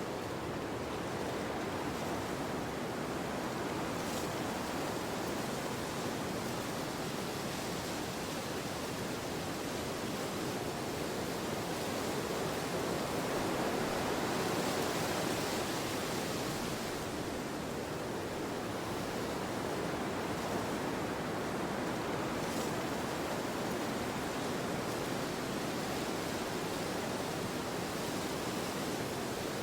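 Gusty wind blowing through trees: a steady rushing that swells about halfway through, then eases back.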